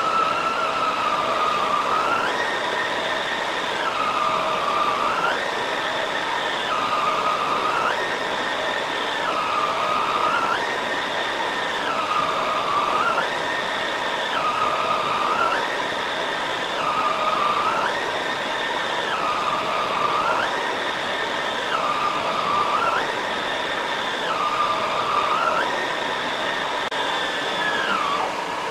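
Shark Rotator upright vacuum running on shag carpet, its motor whine stepping up in pitch and dropping back again every two to three seconds as the head is pushed forward and pulled back.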